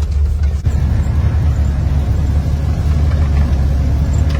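Snow cat running steadily, a loud, heavy low drone.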